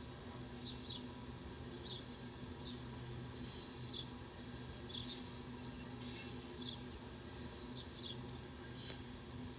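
A small bird chirping over and over, a short high chirp about once a second, over a steady low rumble and hum.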